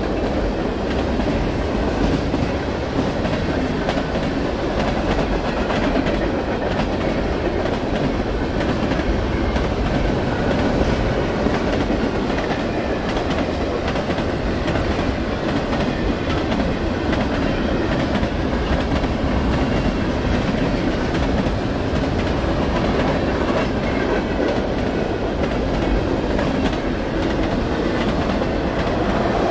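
Freight train cars rolling steadily past: a continuous rumble of steel wheels on rail with scattered clicking.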